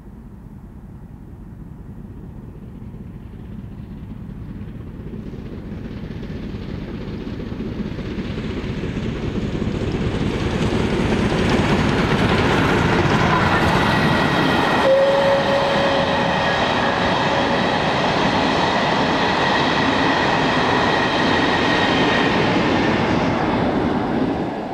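Rebuilt Bulleid light Pacific steam locomotive, 34046 Braunton, working hard as it approaches and passes at speed with its coaches. It grows louder over the first ten seconds, stays loud while the coaches run by, and drops away sharply at the end.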